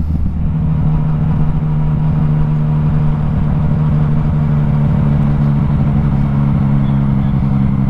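Yamaha MT-09 Tracer 900's three-cylinder engine through an Akrapovič exhaust, under way on the road: the revs step up just after the start, then hold steady at a constant cruising note.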